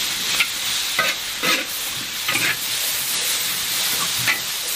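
Sliced young ginger and chilies sizzling in hot oil in a large wok, with a metal spatula scraping against the wok about five times as they are stir-fried.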